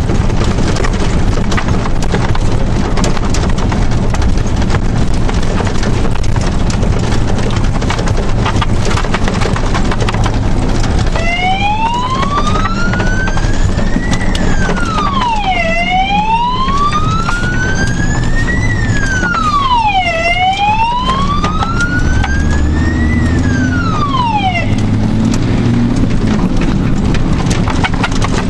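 Fire engine's siren wailing in three slow rising sweeps, each followed by a quicker fall, starting about eleven seconds in and stopping a few seconds before the end. Underneath, the truck's engine and road noise run steadily, heard from inside the cab.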